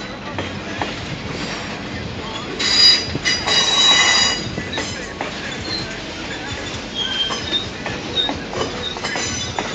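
Freight train of boxcars rolling past, its wheels squealing on the rails in high-pitched spells, loudest about three to four seconds in, over steady rolling noise with clicks from the wheels.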